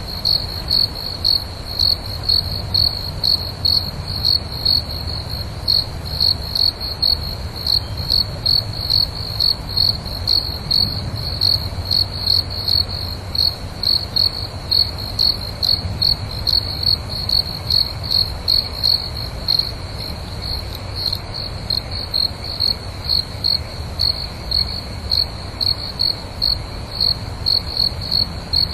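Crickets chirping in a steady, even rhythm of about two high chirps a second, over a low rumble.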